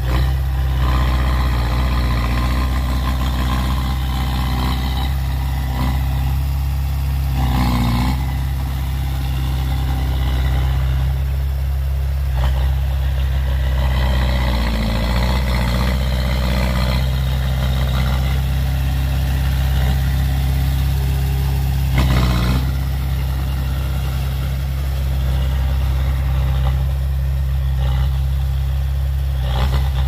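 Small crawler bulldozer's diesel engine running steadily under load, with several louder bursts of clatter and revving as it pushes soil.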